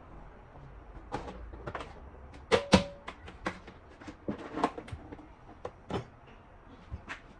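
Kitchen handling sounds: a run of knocks and clinks as things are set down and moved, with two loud knocks close together about two and a half seconds in, the second ringing briefly.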